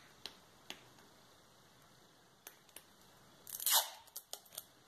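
Roll of clear sticky tape being handled: light clicks and taps, then a short rip of tape pulled off the roll about three and a half seconds in, followed by a few more clicks.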